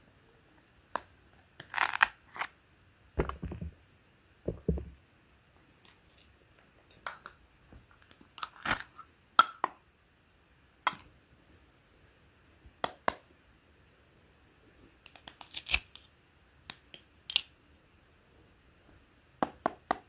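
Toy play-food fruit halves clicking and knocking together as they are handled, with short rasping rips as the hook-and-loop-joined halves are pulled apart. There are two dull thumps a few seconds in.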